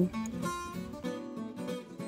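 Background music: acoustic guitar playing a series of separate notes.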